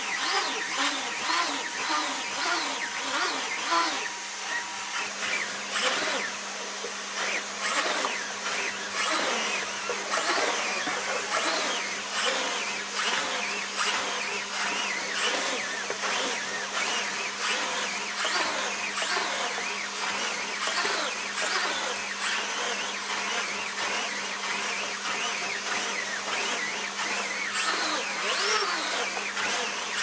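Numatic canister vacuum cleaner running with its Airo brush floor head pushed back and forth over a shaggy carpet: a steady motor hum under a swishing suction noise that changes as the head moves.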